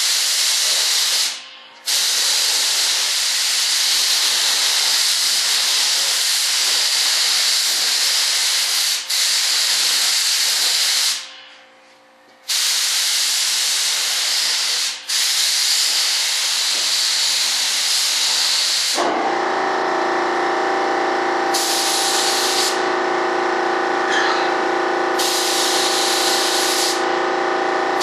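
Air spray gun hissing in long bursts as it sprays a thin coat of Partall #10 PVA mold release, with two short pauses. About two-thirds of the way through, a steady hum of several tones starts and runs on under two shorter spray bursts.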